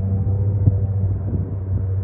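Airboat's engine and propeller running with a steady, loud, low drone, with a brief knock about a third of the way in.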